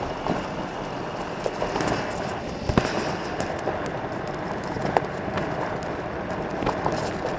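Golf cart tyres rolling over a gravel road: a steady crunching of gravel with many scattered clicks and knocks from stones and bumps, two sharper knocks about three and five seconds in.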